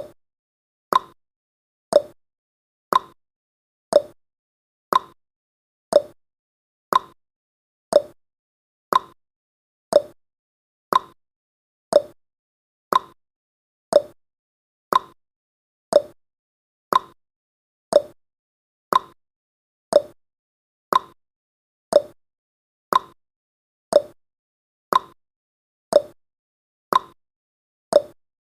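Countdown timer's tick sound effect: a short, sharp tick once every second, steady throughout, the pitch seeming to alternate higher and lower like a tick-tock.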